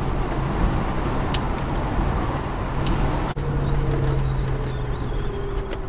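Car engine drone and tyre road noise heard from inside the cabin while driving along at steady speed, with a brief sudden dropout a little past halfway.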